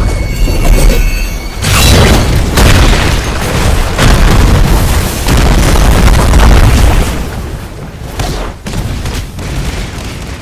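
Very loud, distorted booming noise, dense and heavy in the low end, easing off about two-thirds of the way through with a few short swells afterwards.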